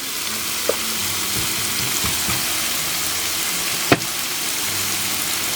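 Pieces of crayfish frying in a hot pan of chilli, shallot, garlic and tomato, a steady sizzle as the meat cooks and curls. A single sharp click a little under four seconds in.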